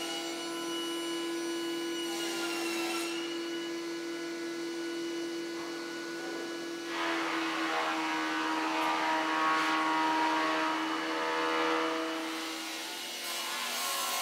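Thickness planer running with a steady hum. About seven seconds in, a wooden panel feeds through the cutter block and a louder, rougher cutting noise lasts for about five seconds before the machine's note drops away near the end.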